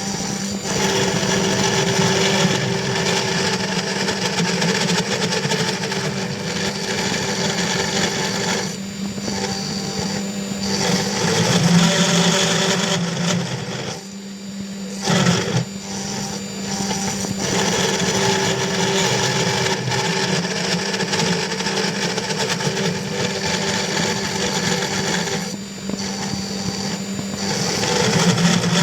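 500 W spindle of a CNC 3020 Plus desktop router milling aluminium: a steady whine and hum with the grinding chatter of the cutter in the metal. The sound dips briefly a few times.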